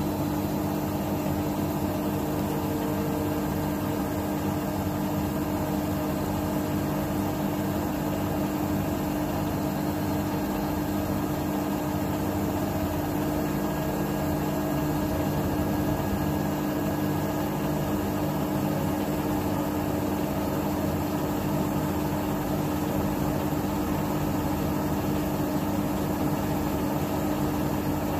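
Bosch Serie 6 8 kg front-loading washing machine (WAT28490NL) in a spin-only cycle set to 1400 rpm, its drum spinning at a steady high speed with the load pinned to the drum wall. The motor and drum make a steady hum that holds at one pitch without rising or falling.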